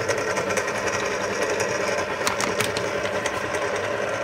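Old Kenwood Chef stand mixer running steadily on low speed as it mixes flour dough: a loud, even motor and gear noise, terribly noisy from the machine's age, with a few sharp clicks about two seconds in.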